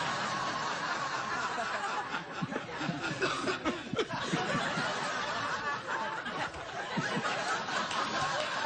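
Studio audience laughing, a steady spread of many voices.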